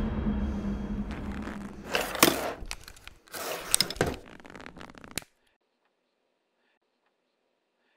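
A low boom dies away, then two bouts of crackling, tearing noise come about two and four seconds in. The sound cuts off suddenly a little after five seconds into dead silence.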